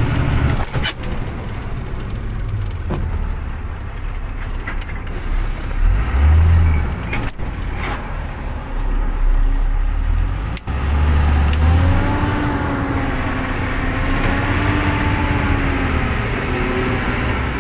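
Truck engine and road noise heard inside the cab as the truck drives on, a steady low rumble broken by a few sharp knocks.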